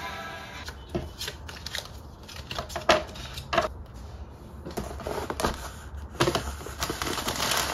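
Handling noises on a desktop: a series of irregular sharp taps and knocks as small objects and papers are picked up and set down, the loudest about three seconds in. Near the end a cardboard box is set down and rustles as it is handled.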